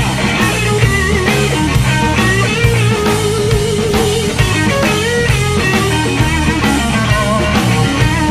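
Background rock music with distorted electric guitar and a fast, steady drum beat.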